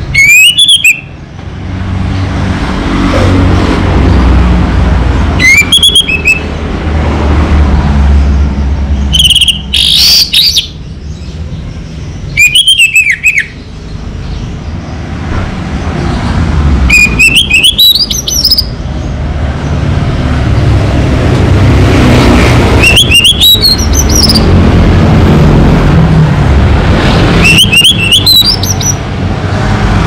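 Orange-headed thrush singing seven short phrases of fast rising and falling whistled notes, one about every four to five seconds, over a steady low rumble.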